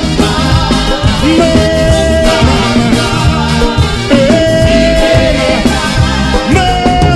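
A live gospel reggae band playing with a steady bass and drum beat, with voices holding long notes over it three times.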